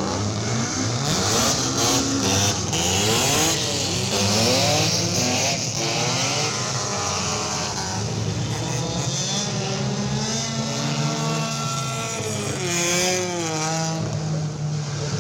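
Race car engines on a circuit, revving hard, their pitch climbing and dropping again and again as they accelerate and shift gears. More than one engine can be heard at once.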